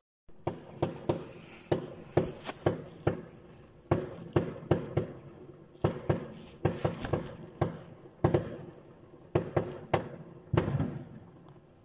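Aerial fireworks going off: a long, irregular string of sharp bangs, about two to three a second, some in quick clusters, each followed by a short echoing decay.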